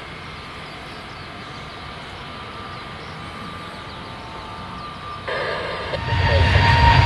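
Quiet, steady background noise, then about six seconds in a jet airliner's engines come in loud: a deep rumble with a steady high whine over it.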